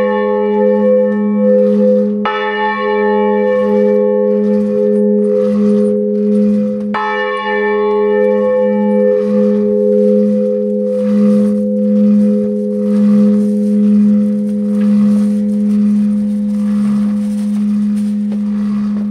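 Church bell swinging in full peal, heard close up from inside the belfry. The clapper strikes twice, about two and seven seconds in. After that there are no more strikes, and the bell's low hum rings on with a slow waver in loudness.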